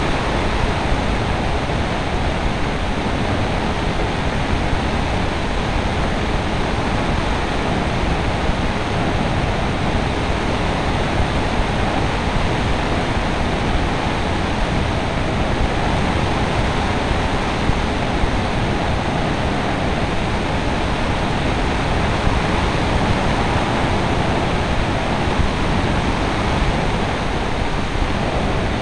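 Steady rushing noise of air over the onboard microphone of a Wing Dragon flying-wing RC plane in flight, an even hiss with no distinct motor tone.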